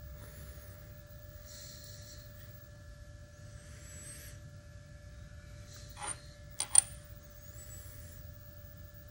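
Faint metallic scraping as a high-speed-steel gear cutter is turned by hand against the stylus of a dial test indicator, with two sharp metal clicks about six and a half seconds in. A steady electrical hum runs underneath.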